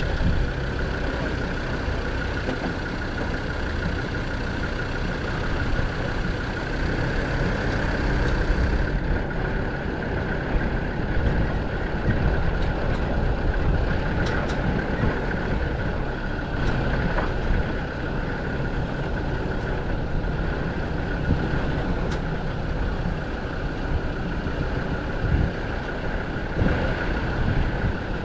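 Land Rover Defender 90's Td5 five-cylinder turbodiesel engine running steadily while driving off-road, with a steady high whine above the engine note. A few sharp clicks or knocks come through now and then.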